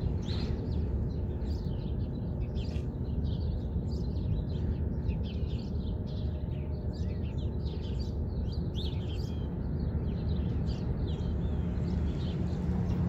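Small birds chirping in quick, overlapping calls throughout, over a steady low background rumble.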